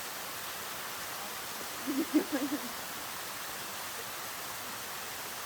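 Steady rushing hiss of a waterfall. About two seconds in, a short wavering voice-like sound rises briefly above it.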